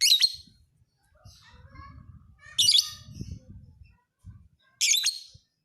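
Lovebird calling in three loud, high-pitched bursts about two and a half seconds apart, with softer chirps between them.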